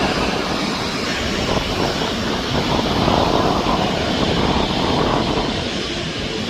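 Jet engines of a Boeing 777-200 running at high takeoff thrust: a steady, loud rushing noise.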